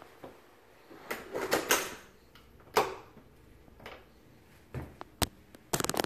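A handful of sharp knocks and clicks, one cluster about a second in, single ones near three and five seconds, and a rapid cluster at the very end.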